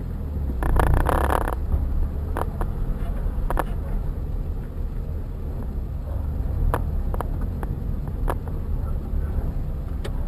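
Steady low road and engine rumble inside a moving car's cabin, picked up by a dashcam. There is a short louder rush about a second in, and a few sharp clicks and rattles come later.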